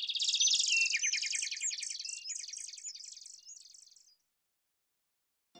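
Birds chirping in a dense, rapid chatter of high notes. It starts suddenly and fades out over about four seconds.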